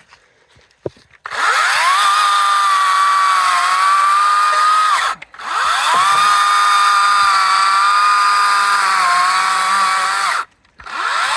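Cat 60V DG631 cordless electric chainsaw run in trigger pulls: its motor spins up with a quick rising whine and holds a steady high whine, stopping about five seconds in, running again for about five seconds, then starting once more near the end. The pitch sags slightly partway through each run.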